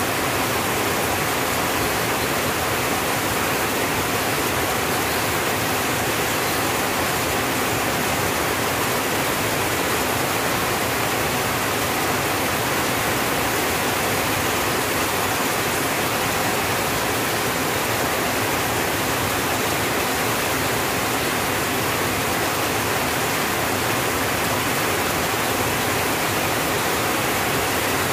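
Rain falling steadily on a tin roof: a dense, even hiss with no single drops standing out.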